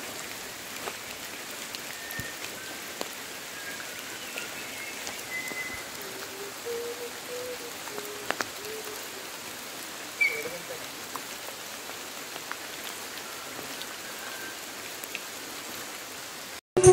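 Steady monsoon rain falling on forest foliage and wet ground: an even hiss with scattered drips, and a few short, faint calls over it. It cuts off abruptly near the end.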